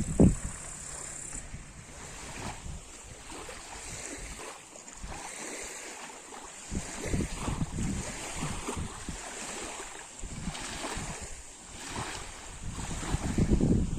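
Lake water lapping and splashing irregularly at the shore, in uneven surges, with wind on the microphone. A brief loud low buffet of wind hits right at the start.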